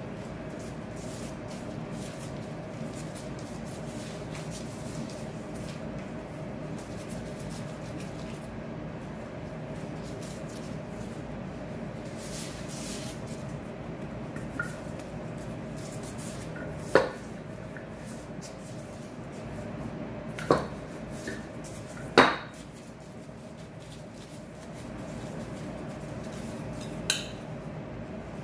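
Four sharp clinks in the second half, a metal spoon knocking against a ceramic dish, over a steady background hum.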